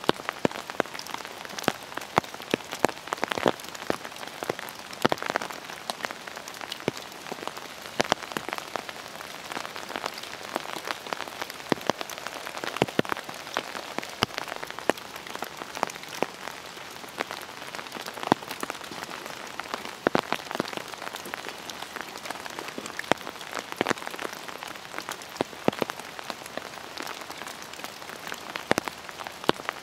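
Steady rain falling, an even hiss broken by frequent sharp, irregular taps of single drops striking close by.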